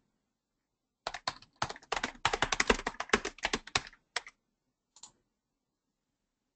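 Typing on a computer keyboard: a quick run of keystrokes starting about a second in and lasting about three seconds, then a single click about five seconds in.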